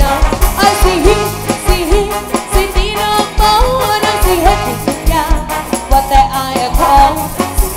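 A live band playing loud amplified music: a steady drum beat under electric guitars, bass and keyboard, with a woman singing over it.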